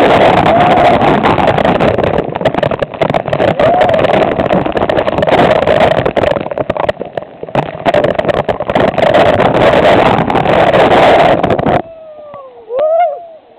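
Loud, steady rushing of a waterfall close to the microphone, crackling and buffeted, that cuts off abruptly about twelve seconds in.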